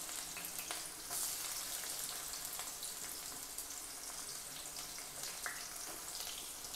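Chopped onions and mustard seeds frying in hot oil in a kadai: a steady sizzle with scattered small crackles.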